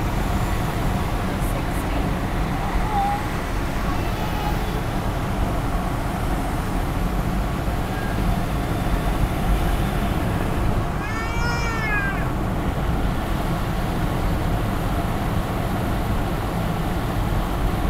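Steady road and engine noise of a moving car. About eleven seconds in, a brief high-pitched call rises and falls in pitch, likely the child riding in the back.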